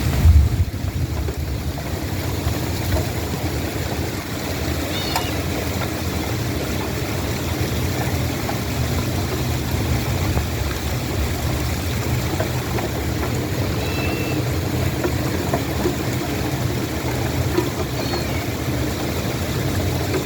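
Steady rain falling with a low rumble, and a few short high chirps about five, fourteen and eighteen seconds in.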